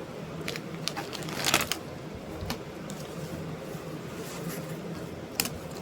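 Scattered light clicks and a brief rustle over a steady low hum, loudest about one and a half seconds in, with a single sharp click near the end.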